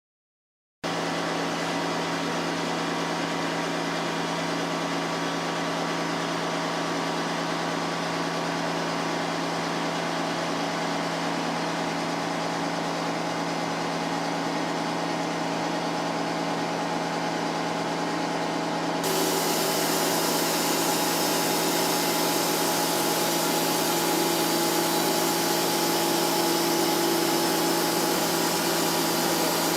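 TOS Varnsdorf WRD 150 DUO horizontal boring and milling machine milling metal with two milling heads: a steady machine hum under continuous cutting noise. About two-thirds of the way in, the sound gets louder and brighter, with a new steady whine.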